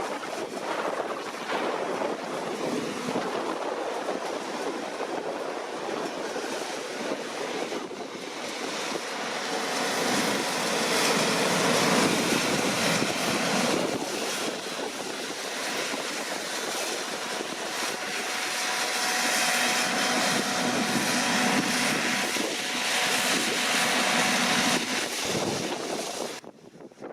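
Deutz-Fahr C9306TS combine harvester running while harvesting, a dense steady engine and threshing noise. It swells twice, in the middle and later on, then drops away abruptly near the end.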